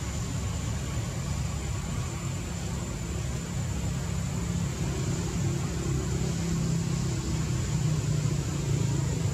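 A steady low rumble of motor-vehicle noise, growing slightly louder toward the end, with a thin high steady tone over it.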